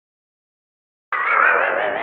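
Silence, then about a second in the opening of a channel intro jingle: a bright, wavering chord of several tones starts suddenly and slowly fades.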